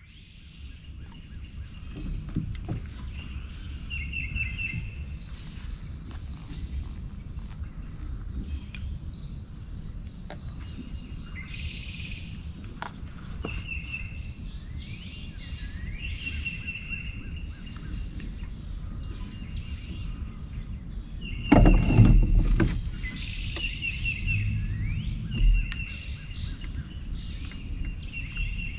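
Several birds chirping and calling over and over, over a steady low rumble. About two-thirds of the way through there is one loud bump, and a smaller one follows a few seconds later.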